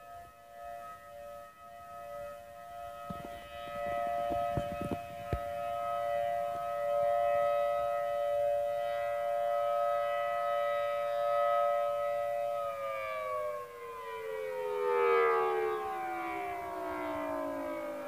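Federal Signal Thunderbolt 1000T outdoor warning siren sounding its dual tone, two steady notes together, its loudness swelling and fading every few seconds. About two thirds of the way in the siren is switched off and winds down, both notes sliding steadily lower in pitch.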